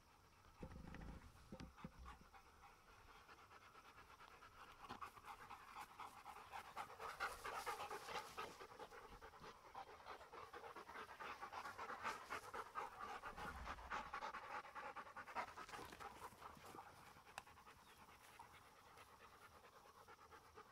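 A dog panting rapidly and hard, swelling and then fading away, after running at fetch. There is a brief low thud about a second in.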